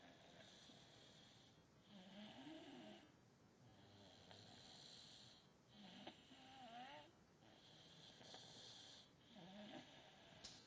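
Six-year-old child snoring faintly in sleep: hissy breaths every second or two, and about three pitched snores that waver up and down in pitch.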